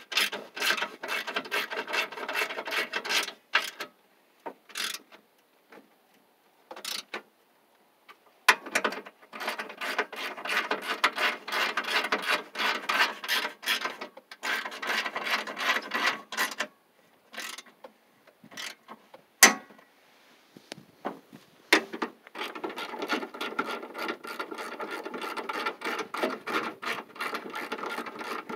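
Hand ratchet wrench clicking as it is swung back and forth to run bolts into a minivan's radiator core support. The fast clicking comes in three long spells, with pauses and a few single clicks between.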